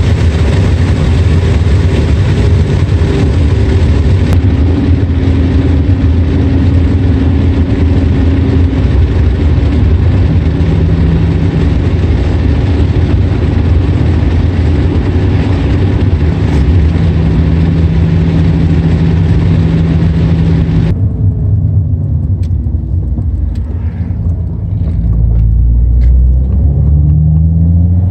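In-cabin sound of a manual-transmission Ford Mustang being driven: steady engine drone with road noise. About twenty seconds in the road hiss suddenly drops away, the engine note dips, and near the end it climbs in pitch as the car accelerates.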